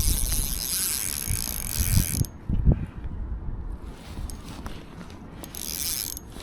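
Shimano Ultegra spinning reel under heavy load from a powerful hooked fish, its mechanism giving a rapid high ticking that stops a little over two seconds in and briefly returns near the end. A few dull knocks of rod and reel handling come in the middle.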